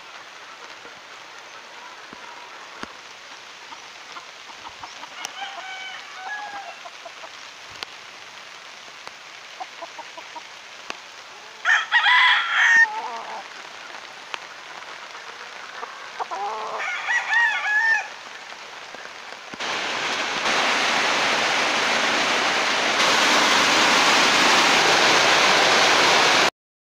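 Gamefowl roosters crowing three times, the loudest crow about halfway through. In the last seven seconds a steady hiss of heavy rain takes over, growing louder in two steps and then cutting off suddenly.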